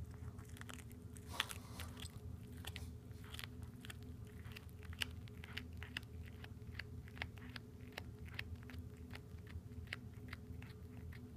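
Domestic cat chewing and crunching on a freshly caught southern flying squirrel: a string of irregular sharp crunches and bites, a few a second, with one louder crunch about a second and a half in, over a faint steady hum.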